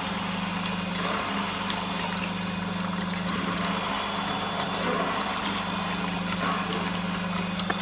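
Colloid mill's electric motor running steadily with a low, even hum while a thin stream of milky ground slurry pours from its outlet pipe into a stainless steel bucket.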